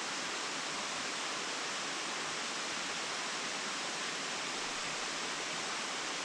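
Small creek cascades: a steady rush of falling water, even and unbroken.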